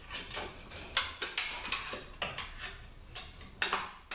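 Long screwdriver prying and scraping at a spacer inside a THM-125C transmission case, working it loose. Irregular sharp metal clicks and scrapes, with the loudest about a second in and again near the end.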